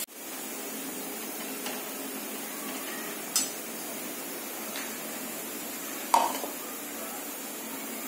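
A few light metallic clinks and knocks of steel cookware and utensils over a steady low room hum, the loudest about six seconds in with a short ring.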